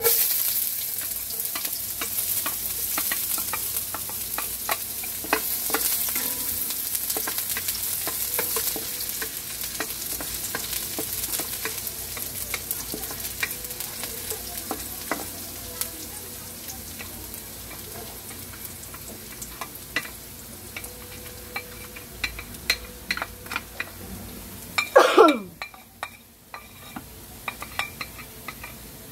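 Chopped onion dropping into hot oil in a wok and sizzling, stirred with a spatula that scrapes and taps the pan; the sizzle is loudest at first and dies down. About 25 seconds in there is a brief, loud falling squeal, followed by more scrapes and taps as chopped garlic goes in.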